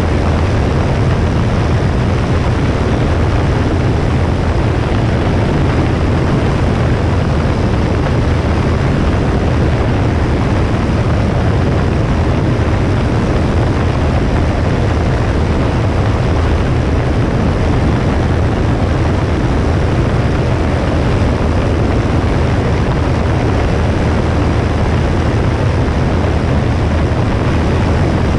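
Cessna 172S's four-cylinder Lycoming engine and propeller running at a steady drone, heard through a wing-mounted camera with airflow noise over the microphone.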